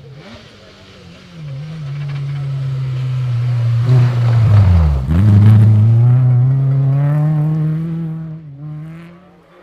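Rally car at speed going past close by. The engine note dips sharply about halfway through as it goes by, then climbs steadily as the car accelerates away and fades out near the end.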